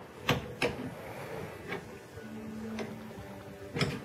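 Ratchet wrench working on the car battery's mounting nut: a handful of sharp, irregular clicks amid light tool handling.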